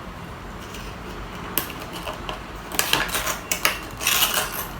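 Toy packaging being handled and opened by hand: scattered sharp clicks and snaps, quickening into a busier patch of clicking and rustling near the end.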